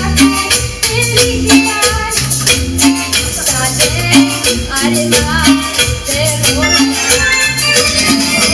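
Latin band music with a steady beat: a repeating bass line under rattling high percussion and a melody instrument.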